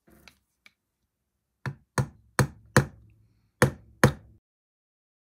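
Small ball-pein hammer tapping on a miniature oak dollhouse piece: four sharp taps in quick succession, a short pause, then two more, after a few faint clicks at the start.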